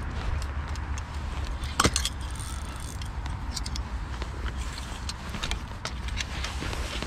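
Clicks and rattles of fishing gear being handled, a spinning reel and a landing net brought out to land a fish, with one sharp knock about two seconds in, over a steady low rumble.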